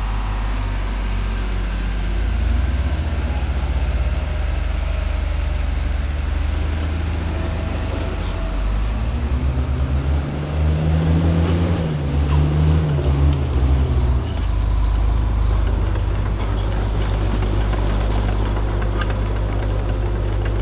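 Diesel engine of a heavy tandem-axle dump truck labouring up a steep dirt slope. Its revs rise and fall back as it passes close, about halfway through. The new truck is short of power on the climb, which the crew puts down to its newness.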